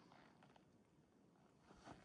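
Near silence: faint outdoor background hiss, with a soft rustle just before the end.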